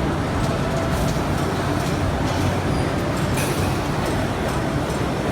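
Steady noise of running factory machinery, with faint light clicks scattered through it and a short hiss about three and a half seconds in.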